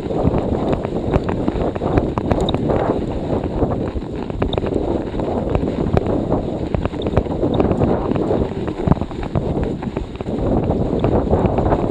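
Storm wind buffeting the microphone of a handlebar-mounted action camera as a cyclocross bike is ridden through a snowstorm, a loud, steady rush. Frequent small clicks and rattles from the bike run through it.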